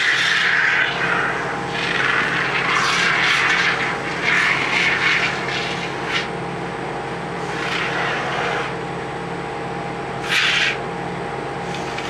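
Aerosol can of expanding spray foam hissing in several short bursts as foam is sprayed into the gap around a window air conditioner. Under it, the GE air conditioner runs with a steady hum.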